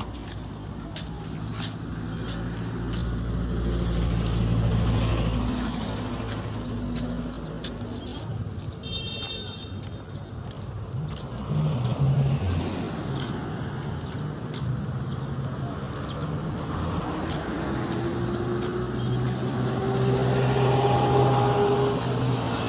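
Road traffic: motor vehicle engines running and passing, with one engine rising in pitch as it accelerates near the end.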